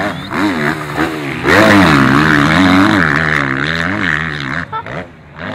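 Enduro motorcycle engine revving hard under load, its pitch rising and falling again and again as the throttle is worked, loudest in the middle and dropping off briefly near the end.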